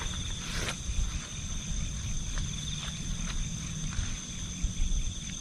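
A steady forest insect chorus, two unbroken high-pitched shrilling tones, over a low rumble, with a few faint clicks scattered through.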